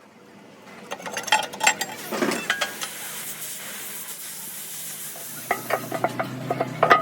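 Arc welding on steel: a crackling, sizzling hiss that starts up in the first second, with bursts of sharp crackles and clicks, and a low steady hum joining near the end.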